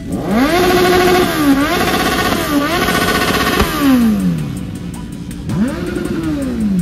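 Superbike engine revving hard: the pitch climbs and holds high with two short dips, falls away, then rises and falls once more in a second throttle blip near the end.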